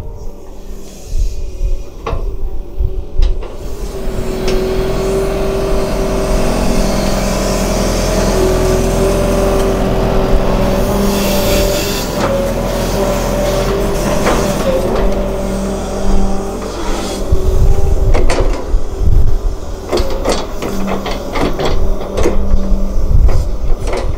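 Sumitomo hydraulic excavator's diesel engine working while digging wet mud. It revs up about four seconds in, holds a steady note, and eases back down partway through. Several knocks follow near the end.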